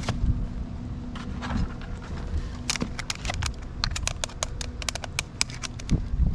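Rattling and a fast run of sharp clicks, several a second from about three seconds in, as a big blue crab clinging to a ring crab net is shaken to make it let go, over a low rumble.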